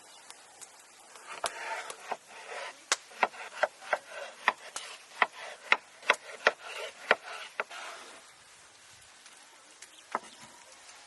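A run of sharp knocks at an uneven pace, with rubbing or scraping between them, lasting about six seconds, then one more knock near the end: the sound of hand work on wood or a hard surface, such as chopping or scraping.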